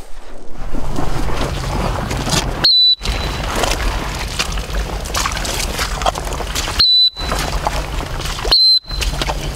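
Three short, high toots of a dog-training whistle, signalling a retriever working in the water, over a steady rush of outdoor noise.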